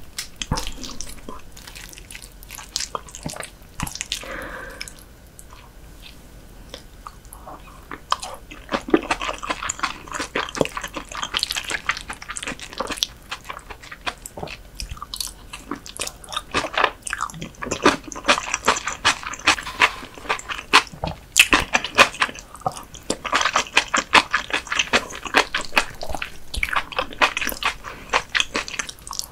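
Close-miked chewing of raw whitebait sashimi with a dressed vegetable salad: wet mouth clicks and crunches, with a quieter stretch about five seconds in before the chewing picks up again.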